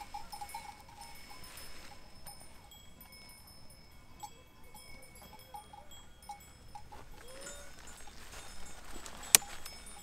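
Metal bells on grazing livestock clinking and ringing on and off, with a single sharp click near the end.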